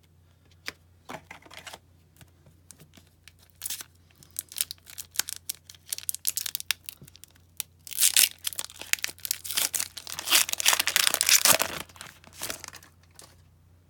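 A foil-wrapped 2018-19 O-Pee-Chee Coast to Coast hockey card pack crinkling in the hands, then torn open: two loud stretches of tearing and crackling wrapper, about eight and ten seconds in.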